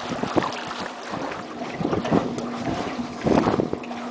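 A small boat running across choppy lake water: water splashing and slapping against the hull, with wind buffeting the microphone. A faint steady motor hum comes and goes, and a louder burst of splashing and wind comes about three seconds in.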